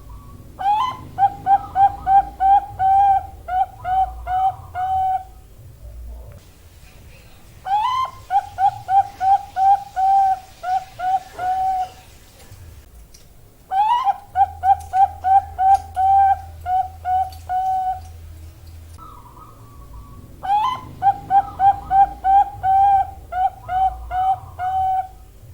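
Zebra dove (perkutut, Bangkok type) singing four cooing phrases. Each phrase opens with a rising note and runs into a quick series of about a dozen short, even coos, with a pause of a second or two between phrases.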